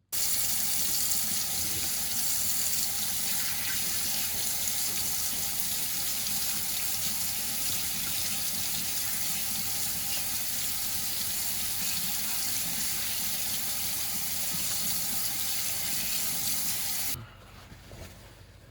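Tap running steadily into a sink while a freshly stonewashed knife blade is rinsed off; the water shuts off abruptly about a second and a half before the end.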